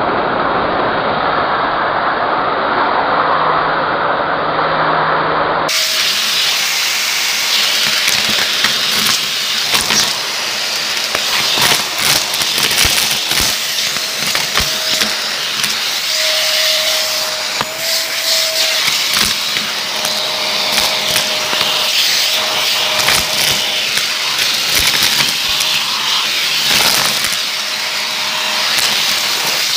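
Vacuum cleaner running with a crevice tool, sucking up foil shreds, confetti and glitter from a hardwood floor. It starts as a dull, steady whoosh. About six seconds in it turns abruptly brighter, with a dense crackle and rattle of debris going up the tool, and a faint whistle comes and goes.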